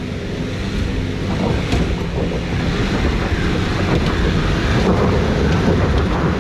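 Nissan Patrol GU 4WD's engine working hard under load as it climbs a steep dirt hill, with tyres churning in loose dirt. It grows louder as the vehicle nears.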